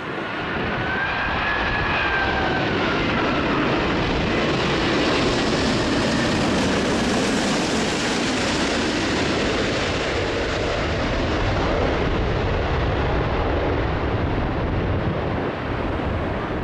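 Jet airliner's engines as it flies low past: a loud, steady rush of jet noise that swells in over the first second, with a high whine that falls in pitch a few seconds in.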